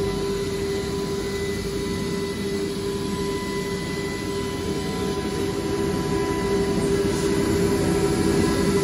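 UE-1228PL CNC wood router running: a steady high whine from the spindle over the rush of its dust extraction, growing a little louder about six seconds in.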